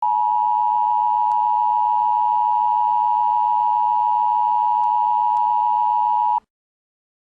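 Emergency broadcast alert tone: a single steady electronic tone held for about six seconds, then cut off abruptly, with a few faint clicks under it.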